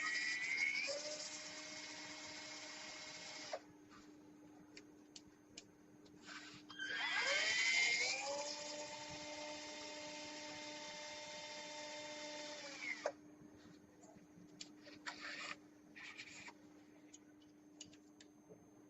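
Battery-powered cannulated orthopaedic surgical drill running twice: each time the motor whine climbs in pitch as it spins up, holds steady, then stops. The first run is already going and stops about three and a half seconds in; the second starts about seven seconds in and stops about thirteen seconds in, with small clicks and handling noises between and after.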